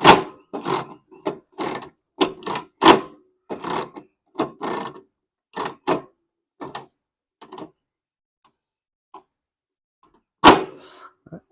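Kerosene heater's wick-adjuster mechanism clunking and rattling as its knob is turned to raise the newly fitted wick: a run of short knocks about two a second, then one loud clack near the end.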